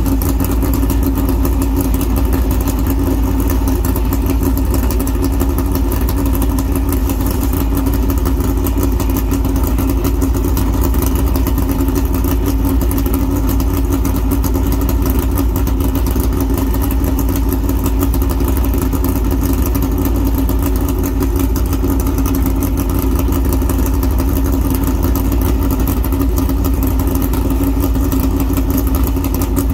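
NASCAR Cup car's V8 engine idling steadily, a constant deep drone that does not change.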